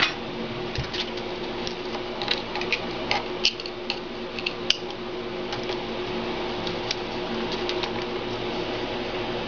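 Unimat SL mini lathe running with a steady motor hum, while a welding contact tip is machined down, with scattered light clicks and scrapes from the cutting.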